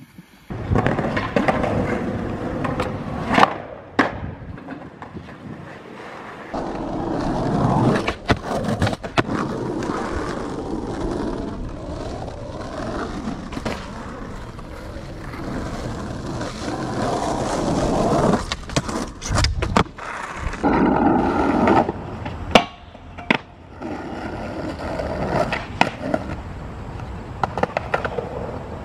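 Skateboard wheels rolling on concrete, with several sharp clacks of the board popping and landing during tricks.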